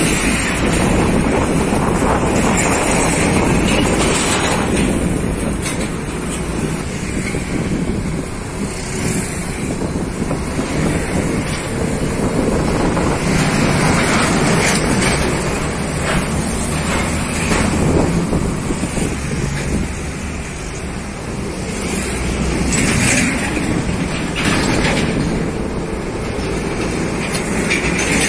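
Heavy diesel trucks, Hino container tractor-units among them, labouring up a slope past the microphone, mixed with motorcycles in the traffic. The engine and tyre noise is continuous and swells and fades as each vehicle goes by.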